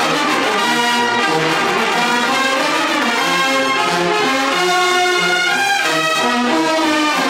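Bersaglieri fanfare, a brass band of trumpets and bugle-horns, playing a march tune in full chords at a steady, loud level, the notes changing every fraction of a second.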